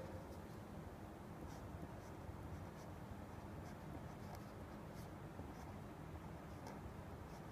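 Pen writing on paper: faint, irregular scratching strokes as numbers are written out, over a low steady hum.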